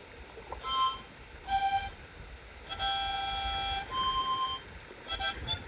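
Background music: a slow melody of separate held notes with a reedy tone, the longest lasting about a second, breaking into quicker short notes near the end.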